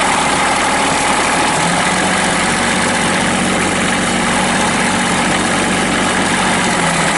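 Toro Dingo TX525's Kubota D902 three-cylinder diesel idling steadily just after starting, with the loose riveted aluminum muffler heat shields rattling, a typical noise on these machines.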